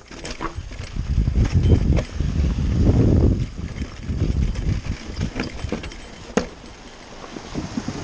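Mountain bike riding fast down a rocky trail: tyres rolling over rock and dirt and the bike rattling and knocking over bumps, with wind rumbling on the microphone. Loudest from about one to three and a half seconds in, with a single sharp click after about six seconds.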